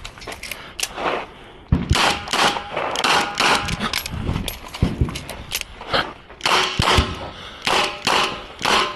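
Rapid revolver fire from a Smith & Wesson 929 in 9mm during a timed stage: sharp shots about one to two a second, with a short pause a little over a second in.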